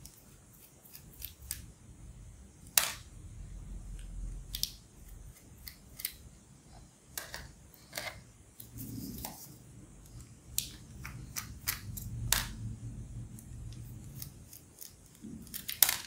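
Small screwdriver taking the screws out of a laptop hard drive's metal caddy: scattered sharp metallic clicks and taps at irregular intervals, with low handling rustle between them.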